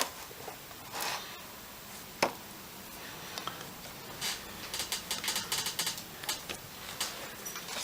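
Small clicks and taps from parts and tools being handled on a workbench. There is one sharp tap about two seconds in, then a quick run of light clicks from about four to seven seconds.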